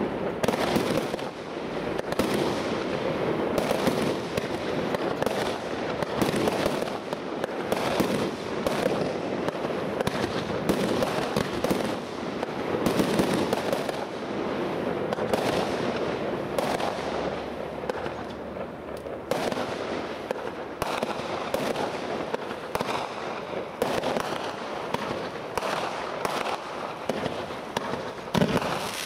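Fireworks going off in a dense, continuous barrage of closely spaced bangs and crackle, with no real pause.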